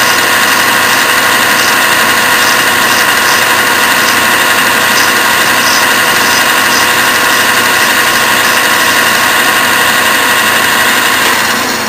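Clausing metal lathe running steadily while its high-speed steel tool bit slowly faces a shoulder on a turned wooden pattern, fed by the compound and peeling off wood shavings. The sound drops off just before the end.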